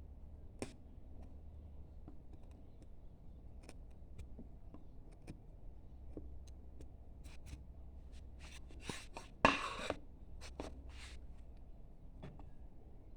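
Hand carving gouge, a number 5 sweep, cutting into wood: scattered short scraping cuts and small clicks, with one louder, longer cut about nine and a half seconds in. A steady low hum runs underneath.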